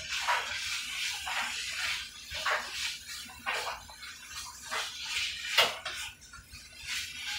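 Steak frying in a skillet, the sizzle swelling in repeated waves as it is stirred, with one sharp click about five and a half seconds in.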